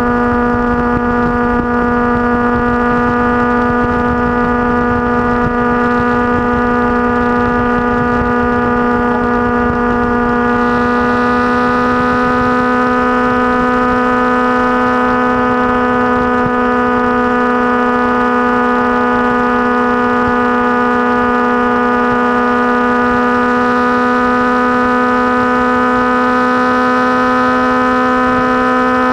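Motorcycle engine running at a steady cruising pace, a continuous drone that creeps slightly higher in pitch after about ten seconds, with rough wind rumble underneath.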